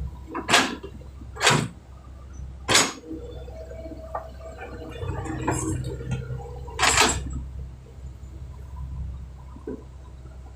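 Backhoe's diesel engine running with a steady low hum, broken by four short, sharp bursts of noise in the first seven seconds.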